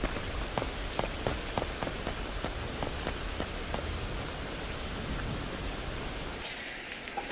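Steady rain falling on a wet street, with single heavier drops ticking through it; the rain thins out and quietens near the end.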